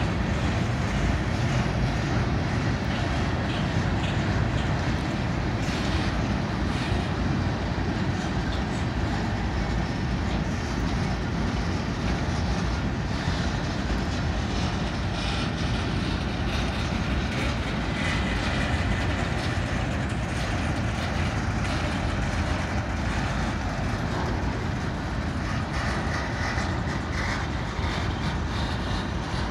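Freight cars of a slow BNSF manifest train rolling past: a steady rumble and clatter of steel wheels on the rails.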